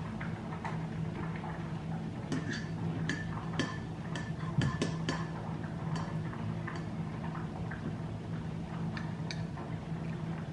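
Metal teaspoon stirring in a ceramic mug, clinking against its sides: a quick run of light ringing clinks about two seconds in, then a few scattered ones. A low steady hum underneath.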